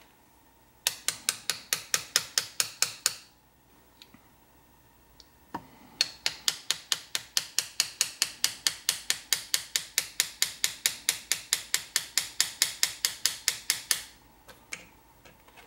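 Small hammer tapping an engraving chisel as it cuts a scroll line into a metal plate: quick, even taps about five a second. The taps come in two runs, a short one near the start and a longer one of about eight seconds after a pause.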